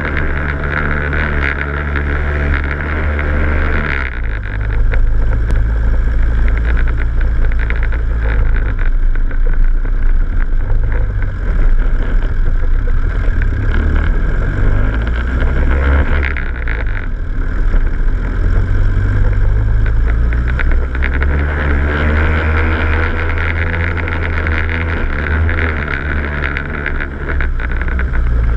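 Off-road vehicle's engine running at low speed on a rough, rocky dirt track, its pitch stepping up and down a few times. Frequent knocks and rattles come from the jolting over stones.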